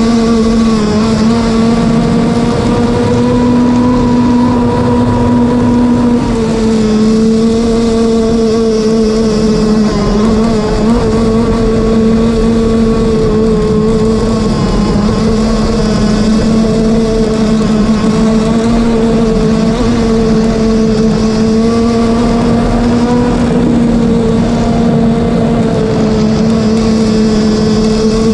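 Zenoah two-stroke gasoline engine of a Bonzi Sports 47 Skater RC boat running at sustained high throttle, heard from on board: a steady, high-pitched buzz whose pitch dips slightly about six seconds in and wavers a little with the hull's speed over the chop.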